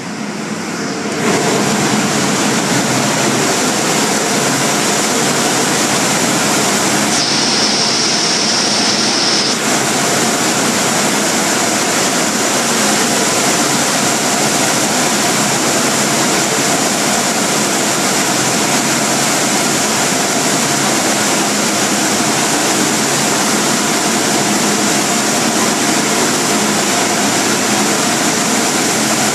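Automatic car wash machinery running, a loud steady rushing roar that swells about a second in and then holds level.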